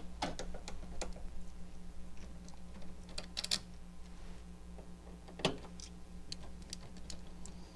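Pliers clicking and scraping on the shipping retainer strap as it is worked off the compressor of a dehumidifier: scattered small clicks and taps, a quick cluster of them about three and a half seconds in and a sharper click about five and a half seconds in.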